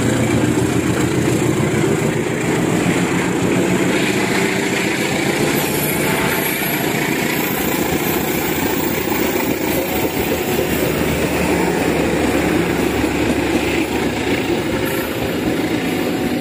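Trains passing at close range. A CC201 diesel-electric locomotive's engine runs under power at first, then there is steady wheel and rail rumble with clatter as the passenger coaches and tank wagons roll by.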